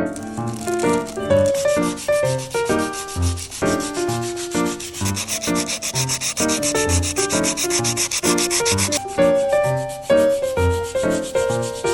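A stainless steel Snow Peak MY Plate being polished with quick back-and-forth rubbing strokes, several a second. The rubbing eases off about three quarters of the way through. Background music plays underneath.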